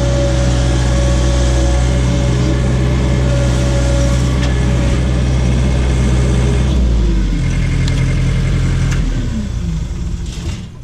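John Deere skid steer's diesel engine running steadily at high revs, then dropping to a lower speed about seven seconds in and winding down near the end.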